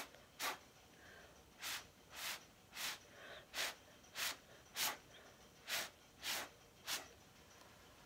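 Short puffs of breath blown through a straw to push wet acrylic paint across a canvas: about ten quick hissing blows, one after another, stopping about a second before the end.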